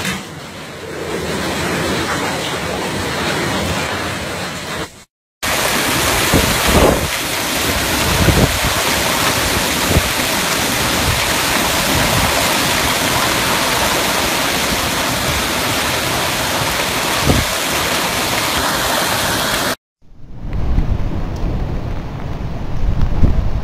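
Downburst storm wind and heavy rain, a loud steady rush with wind buffeting the microphone and a few short thumps. It breaks off sharply twice, about five and twenty seconds in.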